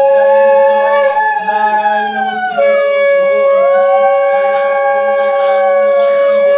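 Conch shells (shankha) blown in long held blasts: one holds a steady note that breaks off about a second in and comes back a second and a half later, while another slides slowly up and down in pitch. A small hand bell rings over them.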